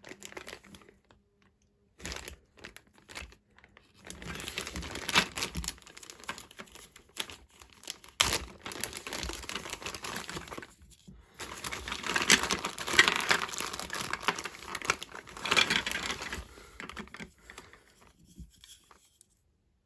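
Crinkling and rustling from handling toy packaging and plastic marble run parts, in irregular stretches with scattered sharp clicks.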